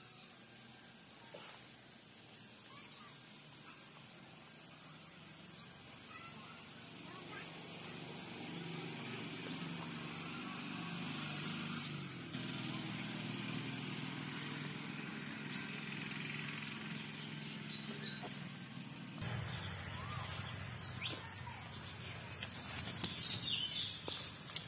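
Outdoor woodland ambience: birds chirping every few seconds, with a short trill a few seconds in, over a steady high insect drone. A low hum with several pitched lines swells through the middle and changes abruptly near the end.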